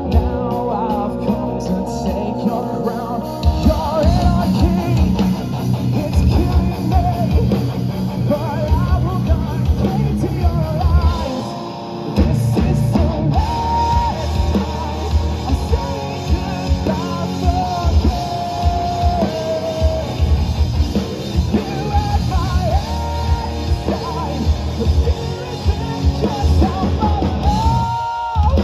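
Live rock band playing: distorted electric guitars and a drum kit driving hard under a singing lead vocal.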